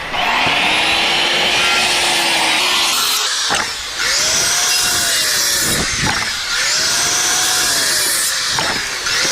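Electric power saw cutting through lumber in three successive cuts. During each cut the motor's pitch rises and then sags under load, with short breaks and sharp knocks between the cuts.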